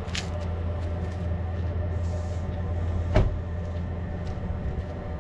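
Truck engine running with a steady low hum, with a few light clicks near the start and one heavy knock about three seconds in.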